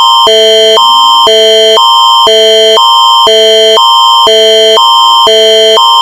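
Canadian Alert Ready emergency attention signal: a loud electronic tone that alternates between a higher and a lower chord every half second, with a steady high note held above both.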